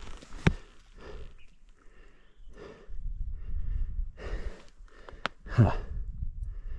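A rider breathing hard into a helmet-mounted microphone: separate noisy breaths a second or two apart, with a few sharp clicks and a low rumble.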